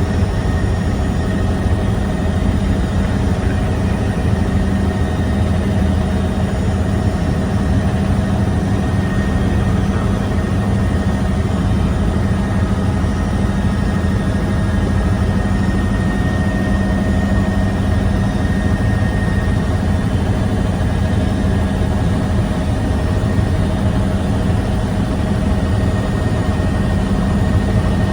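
Helicopter in flight: the engine and rotor make a steady, unchanging drone with a constant low hum.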